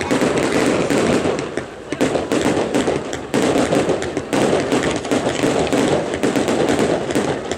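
Aerial fireworks shells bursting in quick succession, their glittering stars breaking with dense crackling. The barrage is near-continuous, with a brief lull about two seconds in.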